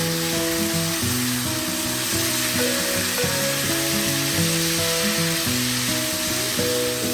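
Food sizzling as it fries, a steady hiss, under background music with a simple stepping melody.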